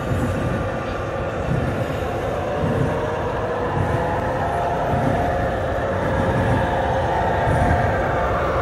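Model railroad diesel locomotives pulling a freight train along the layout track: a steady running sound with a hum that grows louder as the train approaches.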